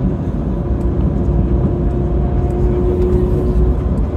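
Translohr rubber-tyred tram running at speed, heard from inside the cabin: a steady low rumble, with a faint whine that comes in around the middle and holds for a second or two.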